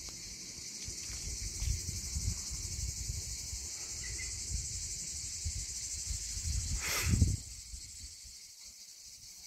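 Steady high-pitched insect chorus, with uneven wind rumble on the microphone. About seven seconds in there is a brief loud noise on the microphone, after which the wind rumble dies down.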